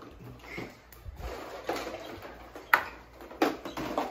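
Bustle of children moving about and handling their baskets: rustling and shuffling, with three sharp knocks in the second half, the first the loudest.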